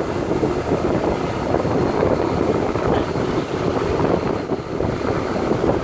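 Wind buffeting the microphone of a moving rider, a steady rushing rumble with no break.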